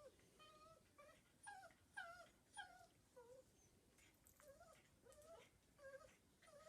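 A puppy whining: a faint run of short, high whimpers, about two a second, some sliding up and down in pitch.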